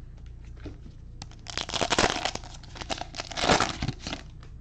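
Cellophane wrapper of a Panini Prizm cello pack crinkling and tearing as it is pulled open, after a few light clicks. The crackling starts about a second and a half in and comes in two louder spells.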